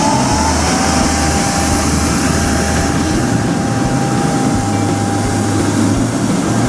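Electric air blower running steadily as it inflates a large inflatable water trampoline, a loud rushing of air with a thin motor whine that rises briefly near the start and then holds one pitch.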